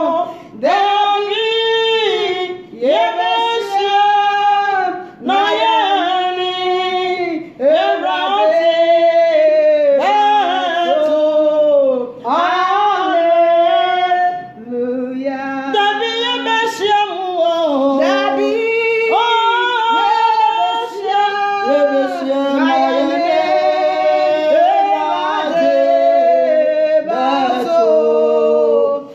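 Two women singing a worship song together, unaccompanied, in phrases of a few seconds with brief breaks between them.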